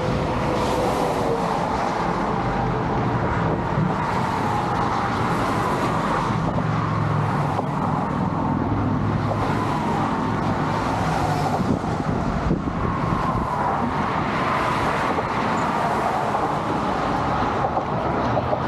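Steady motor-vehicle road noise, a continuous rush of tyres and engine with a faint wavering whine.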